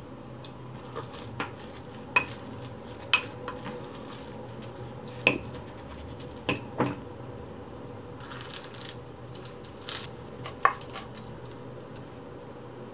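A wooden spoon and wire whisk knocking and scraping against a ceramic mixing bowl while egg and rice are stirred, with about half a dozen sharp clinks spread out over a low steady hum.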